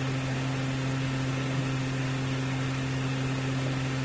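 Steady low electrical hum with an even hiss: the background noise of the sermon recording, with no voice. A faint click about one and a half seconds in.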